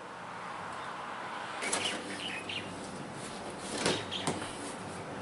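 Packaging being handled: rustling with a few sharp knocks and several short high-pitched squeaks.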